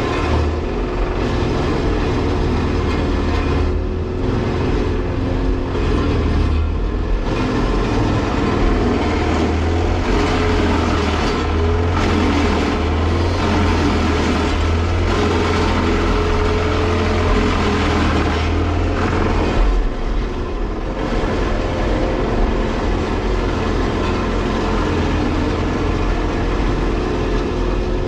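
A Volvo 235EL excavator and a wood chipper running together, a loud, steady heavy-machinery noise with a deep hum that falls away about twenty seconds in.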